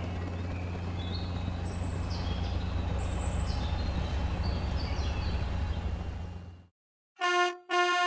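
A cartoon quadcopter's steady low propeller hum, with high chirps over it, stops suddenly about six and a half seconds in. Just before the end a cartoon truck horn toots twice in quick succession.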